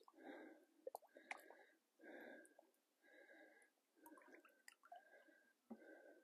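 Very faint water sloshing in the shallows, a soft wash of sound about once a second, with a few small drips and clicks.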